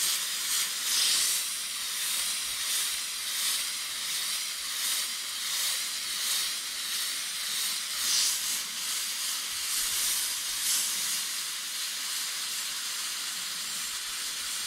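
Badger Anthem 155 airbrush hissing as compressed air sprays black paint onto fabric. The hiss swells and eases every second or two as the trigger is worked for each lettering stroke.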